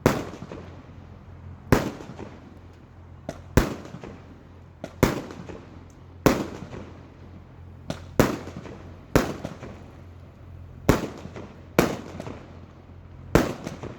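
A 25-shot consumer fireworks cake firing shell after shell, each bursting in the air with a sharp bang and a fading tail, about eleven reports spaced one to two seconds apart.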